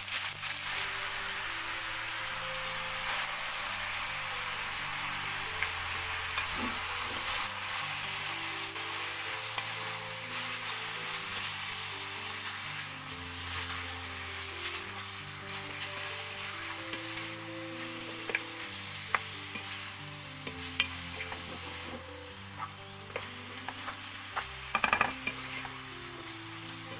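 Mutton pieces searing in hot oil with fried onions in a pot, a steady sizzle that slowly quietens, while a wooden spatula stirs them. Sharp taps and scrapes of the spatula against the pot come near the end, the loudest about two seconds before it ends. Soft background music with slow low notes plays underneath.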